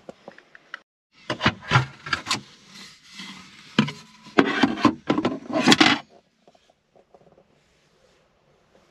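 Irregular knocking and scraping of plastic parts being handled as a camper van's cupboard and the cap over its fresh-water tank are opened. The noise is busiest for the first six seconds, then gives way to a few faint ticks.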